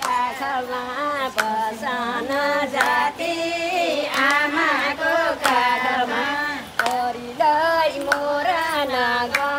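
Women singing together, with sharp claps or percussive hits keeping time.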